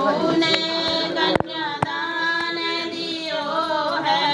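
A female voice singing a slow, drawn-out melody with long held notes that waver in pitch. A few sharp clicks come in the first two seconds.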